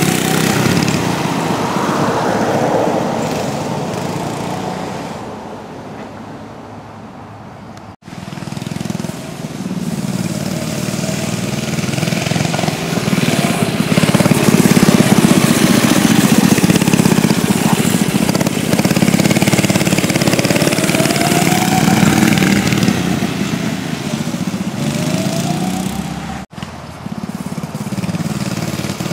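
A mini bike's small engine running and revving as the bike rides around. It fades away over the first few seconds, then grows loud again as it comes close, with the pitch rising and falling, and it cuts off abruptly twice, about 8 s and 26 s in.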